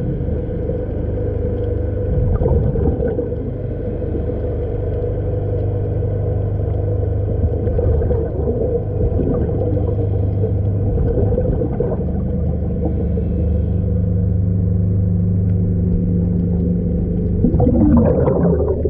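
Underwater recording of a steady low machinery hum with several held tones, the drone of ships' engines or generators carried through the harbour water. Near the end a brief, louder, busier burst rises over it.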